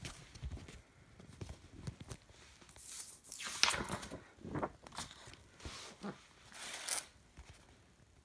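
Paper sleeves and inserts of a vinyl LP set being handled and slid about: several rustling swishes, the loudest about three to four seconds in, with a few soft knocks.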